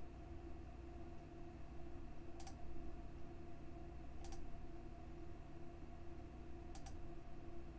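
Three computer mouse clicks a couple of seconds apart, each a quick double tick of button press and release, over a steady low electrical hum.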